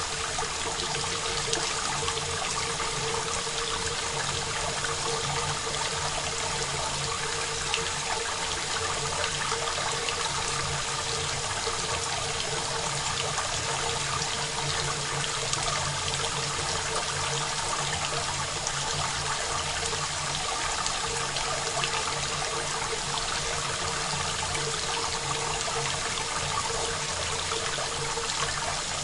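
Steady rain, an even hiss of many drops, recorded dry with no reverb.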